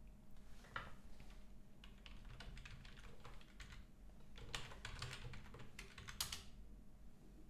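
Typing on a computer keyboard: runs of quick keystrokes with short pauses between them, and a louder key press about six seconds in.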